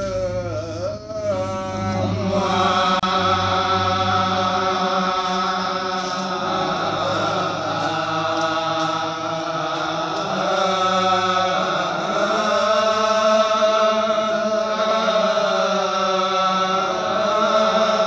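Genjek, the Balinese male vocal ensemble music of Karangasem: a group of men chanting and singing together, their voices imitating gamelan parts over a low, steady hummed drone. A single voice leads at first, and the full group comes in about two seconds in.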